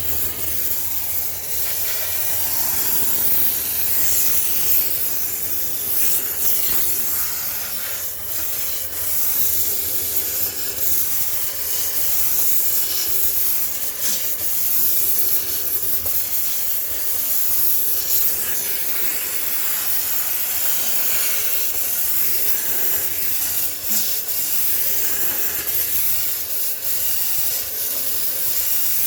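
High-pressure steam cleaner hissing steadily, used for steam sterilization.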